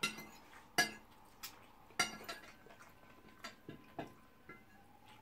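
A metal fork clinking and scraping against a dinner plate while spaghetti is eaten: a few sharp clinks, the loudest about a second and two seconds in, and lighter taps later.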